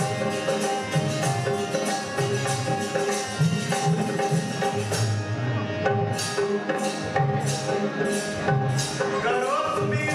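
Tambura bhajan ensemble playing an instrumental passage: harmonium and tambura drone over dholak drumming. From about halfway, jhanjh cymbals and tambourines strike a bright jingling beat about twice a second.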